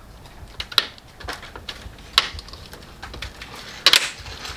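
Hard plastic clicking and tapping as an illuminated bowtie emblem is handled and pressed into a car's plastic grille, with sharper clicks about a second in, about two seconds in and near the end.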